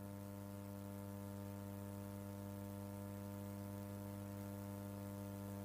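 Steady electrical mains hum: a low, even buzz with many overtones and no change.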